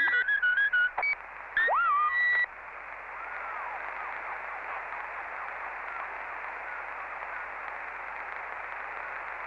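CB transceiver receiving on the 11-metre band. For about the first two and a half seconds come wavering whistle tones that slide in pitch and break off briefly. Then steady static hiss runs on.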